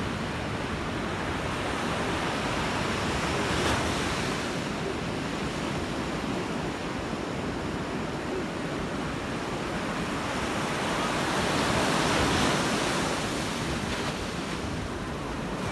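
Small sea waves breaking and washing onto the shore, swelling louder about twelve seconds in, with wind noise on the microphone.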